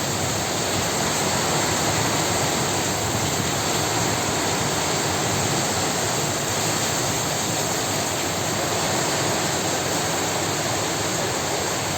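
Strong storm wind with heavy rain, an unbroken steady rush that does not let up.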